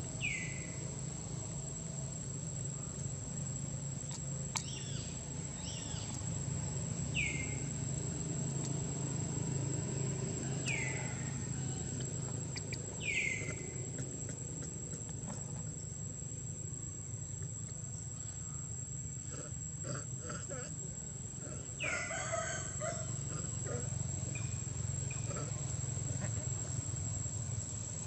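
Steady high-pitched insect drone, with a short falling call heard about six times at uneven intervals over it.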